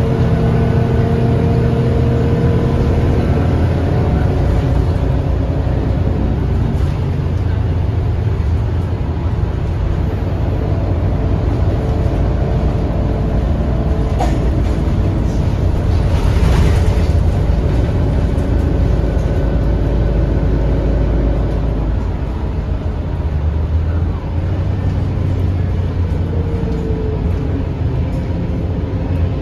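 The bus's MAN D2066 10.5-litre six-cylinder diesel engine and drivetrain running under way, heard on board as a steady low rumble with engine notes that change as it drives. There is a brief hiss just past halfway.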